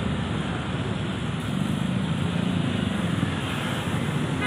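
Steady low rumble of road traffic passing on a busy road.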